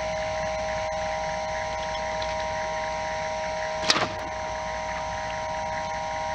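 A steady mechanical hum with several fixed high tones runs throughout. About four seconds in, a single sharp snap is heard as the bowfishing bow is shot.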